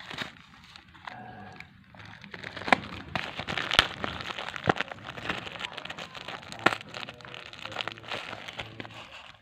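Plastic packaging crinkling and crackling as a parcel is handled and opened, with several sharp snaps standing out.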